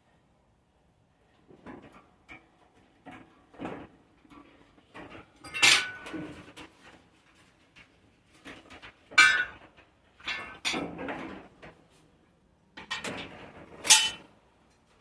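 Irregular knocks, clicks and rustles of hands working wiring and parts against the truck's sheet metal. There are sharper metallic clanks with a brief ring about six, nine and fourteen seconds in.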